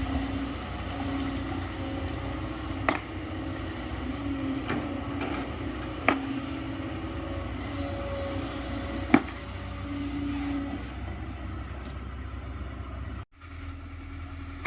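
Excavator loading sand into a dump truck: a steady diesel engine drone with a hum that comes and goes, and sharp metal clanks about every three seconds. The sound cuts out briefly near the end.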